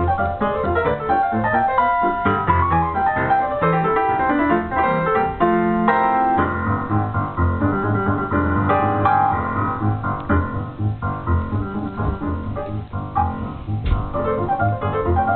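Boogie-woogie piano music with a fast melody over a rolling, repeated bass line.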